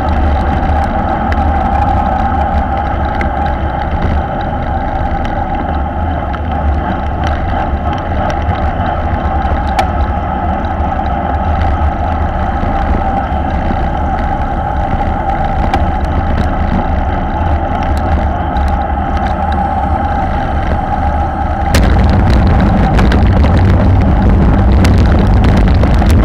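Wind rushing over the microphone of a camera carried at racing speed in a bunch of road cyclists, mixed with the noise of tyres on asphalt: a steady rush with a hum. About three-quarters of the way through it turns suddenly louder and rougher.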